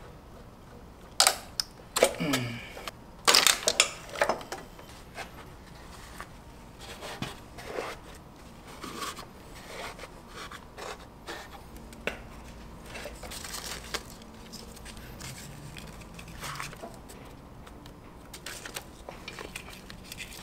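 Hands working on a stripped motorcycle engine: a few sharp clicks and rattles of hose and connector fittings in the first four seconds, then quieter scattered clicks, rustling and crinkling.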